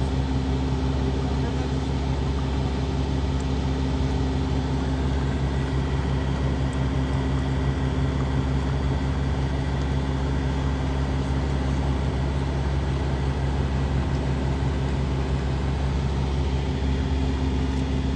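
Steady low drone of a vehicle engine, unchanging throughout.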